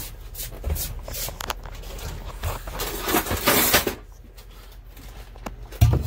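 A metal utensil scraping and knocking on a plywood cabinet shelf as it is reached in to hook a wine bottle and drag it forward, with a louder scrape about three seconds in.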